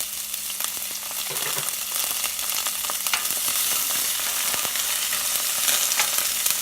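Mustard seeds, dried red chillies, chopped onion, green chillies and curry leaves sizzling in hot oil in a pan, a steady hiss with many small crackles and pops.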